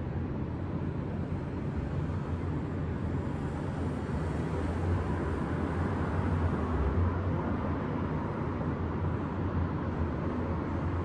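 Steady wash of distant city road traffic with a low rumble, swelling slightly about halfway through.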